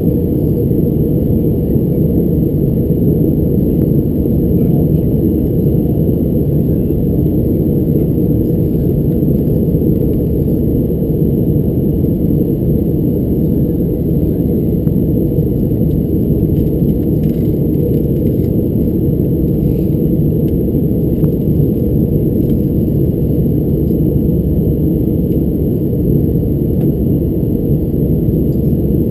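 Steady cabin noise of an Airbus A321 airliner in descent: an even, low rush of airflow and CFM56 engine noise, with a faint thin high tone above it.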